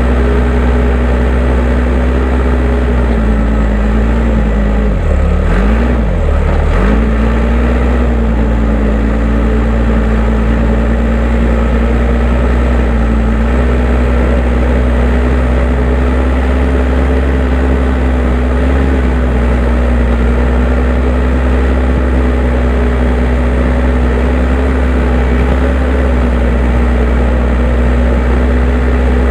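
Case 580M backhoe loader's diesel engine running steadily at working throttle. About five seconds in, its pitch drops sharply and recovers twice in quick succession, then it holds steady again.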